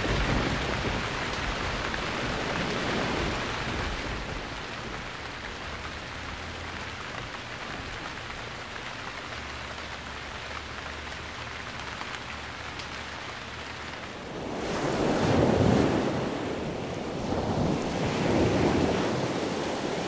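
Steady hiss of rain falling, then ocean waves breaking in two louder surges that swell and fall back near the end.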